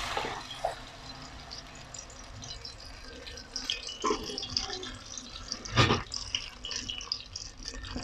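Wet blended curry paste of onion, garlic, ginger, dried chillies and curry powder sizzling and crackling in hot oil in a frying pan, just added for sautéing. A knock about six seconds in, with a lighter one a little before.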